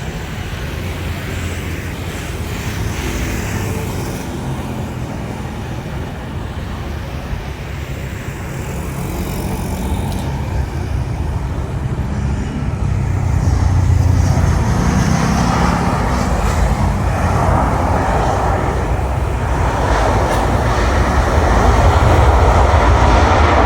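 Boeing 737-800 jet airliner on its landing approach, its engines running as one steady rumble that grows louder through the second half.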